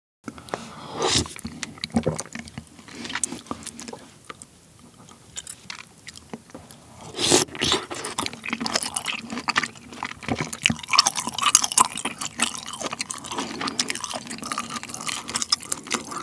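Close-miked eating sounds: a man chewing mouthfuls of pork-belly kimchi stew, with many short, sharp clicks and wet mouth noises, the loudest about seven seconds in.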